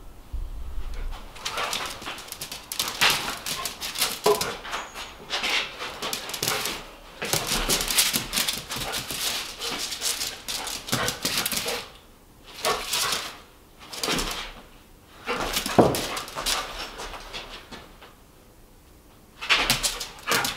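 Excited dog running about on a bare concrete floor: a string of short, irregular scuffs and pants, with a brief whimper now and then.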